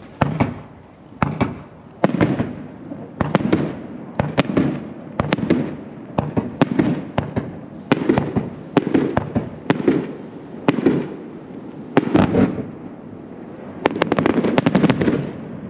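Aerial fireworks bursting in a steady series, about a dozen booms a second or so apart, each trailing off in a rumbling echo, with a quick run of crackling bursts near the end.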